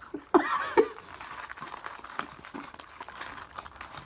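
Dry Honey Nut Cheerios being crunched and chewed as a girl and a beagle eat off plates, a steady run of small crackly clicks. A brief voice sound comes about half a second in.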